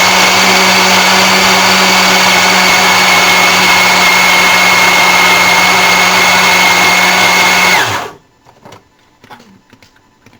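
Countertop blender running at a steady speed, churning a thick mix of vegetables, fruit and sauces, with a constant motor whine; it is switched off about eight seconds in and winds down quickly.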